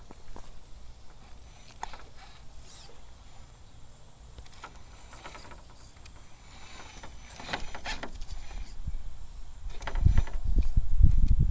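A 1/10-scale RC rock crawler works its way over course obstacles, its tires and chassis giving scattered small clicks and knocks. A loud, irregular low rumble starts about ten seconds in.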